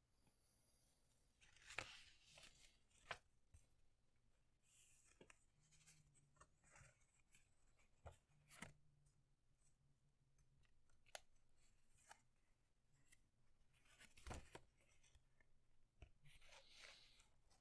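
Faint rustling and crinkling of paper as hands handle and open out a folded paper airplane, with scattered sharp crackles and taps, the loudest about two seconds in and again near fourteen seconds.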